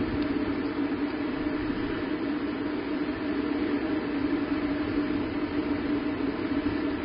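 Steady background noise: an even hiss with a constant low hum, and no distinct events.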